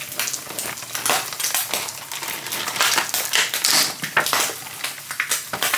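Turkey fillet slices frying in butter in a non-stick pan, a dense crackle and spatter of fine pops. Over it, a clear plastic egg carton crackles as it is handled.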